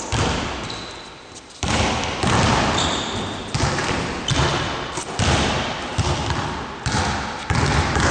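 Basketballs bouncing on a wooden gym floor as players dribble, each bounce echoing through the large hall, at roughly one to two bounces a second. A short high squeak comes about three seconds in.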